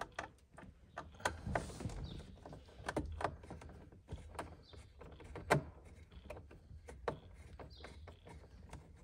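Irregular light clicks and small knocks of a screwdriver and plastic steering-column trim being handled as a missed screw under the column is undone, the sharpest click about five and a half seconds in.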